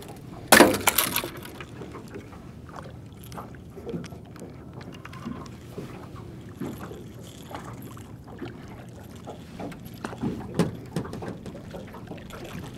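Fishing tackle and gear being handled on a boat: a loud clatter about half a second in, then scattered knocks and clicks as rods and lines are worked, with another cluster of knocks near the end.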